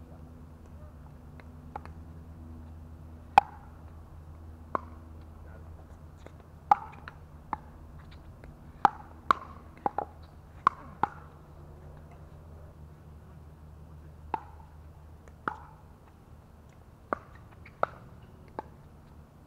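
Pickleball rally: sharp, hollow pops of paddles hitting a plastic pickleball and of the ball bouncing on the court, about sixteen in all. There is a quick run of six exchanges just after the middle, then a pause.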